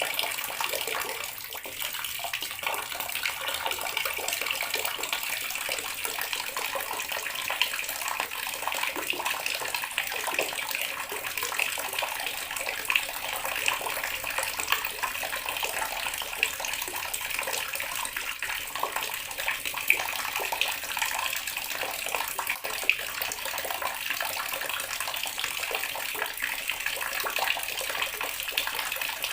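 Water running steadily from a tap and splashing into a basin or tub below, an even splashing hiss with small spatters.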